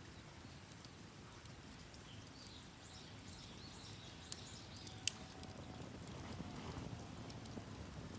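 Wood fire crackling, with scattered small snaps and two sharp pops about four and five seconds in. Faint high bird chirps sound briefly in the middle.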